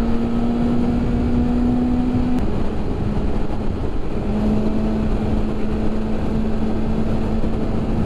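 BMW S1000RR's inline-four engine running at a steady cruising speed, with a rush of wind underneath. Its note eases slightly about two seconds in, then holds steady at a little lower pitch.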